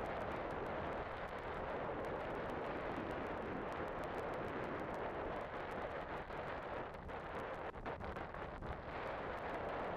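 Steady rushing rumble of a car ferry under way, heard from its open car deck: wind on the microphone mixed with the ship's running noise, dipping briefly a few times near the end.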